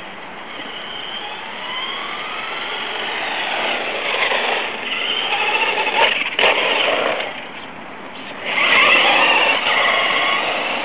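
Traxxas Stampede electric RC truck's motor and gears whining, the pitch rising and falling as it speeds up and slows, loudest as it runs close by. There is one sharp knock about six seconds in.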